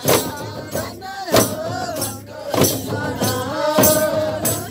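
Folk song for a kauda dance: voices singing a winding melody over sharp, jingling percussion strikes that land about once every second and a quarter.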